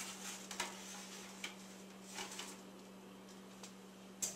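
A metal baking sheet sliding onto an oven rack, with a few light clicks and knocks, then the oven door being pushed shut near the end. A steady low hum runs underneath.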